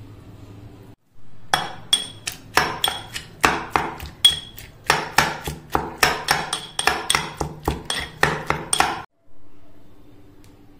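A kitchen utensil knocking repeatedly against a hard, ringing vessel: quick clinking strikes about three a second, starting about a second and a half in and stopping abruptly near nine seconds.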